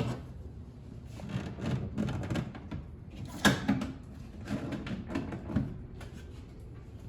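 Household handling noise: a run of short knocks and clatters, the loudest a sharp knock about three and a half seconds in.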